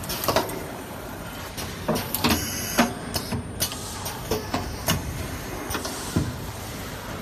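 Automated stator laser welding machine cycling: its pneumatic clamps and slides clack and knock irregularly, with short bursts of air hiss, over a steady machine hum.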